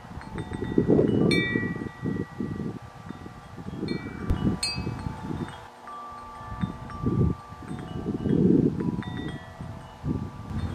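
Wind chimes ringing irregularly in the breeze, several clear tones overlapping and ringing on. Gusts of wind buffet the microphone underneath.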